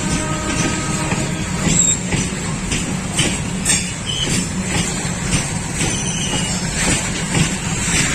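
Train running on the rails: a steady rumble with irregular clanks and knocks throughout, and a faint pitched tone in the first second.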